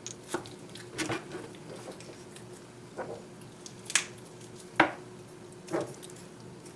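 Thin kitchen knife cutting raw chicken on a plastic cutting board: about six separate taps and knocks of the blade and the meat against the board, the loudest about two-thirds of the way through. A faint steady hum underneath.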